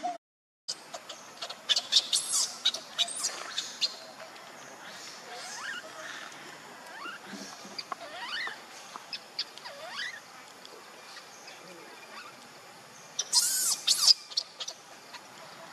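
Newborn baby macaque crying on the ground, a string of short rising-and-falling calls about a second apart, with brief harsh, loud shrieks about two seconds in and again near the end.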